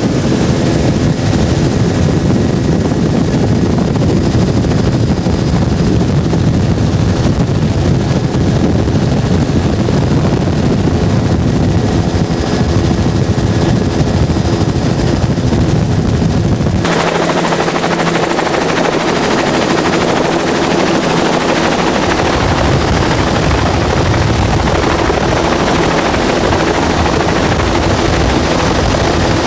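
A 200 hp Evinrude Ocean Pro two-stroke outboard running at speed under a steady rush of wind and water. About two-thirds of the way through, the sound changes abruptly to a louder hiss of wind and spray with the engine's low drone gone, and the drone returns a few seconds later.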